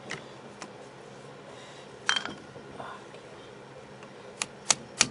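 Small metal taps as the float hinge pin is tapped into the carburetor body: a few light clicks, a louder clink about two seconds in, then a run of sharp, evenly spaced taps, about three a second, near the end.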